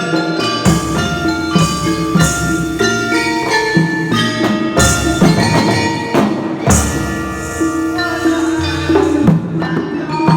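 Live jaranan gamelan music played by an ensemble, instrumental. Struck metallophone and gong notes ring out over drum strokes.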